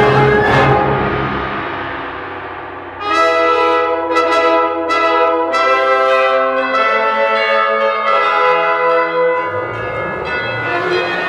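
Orchestra playing: a loud full chord dies away over about three seconds. Then brass chords sound with pealing bell strokes, struck about twice a second.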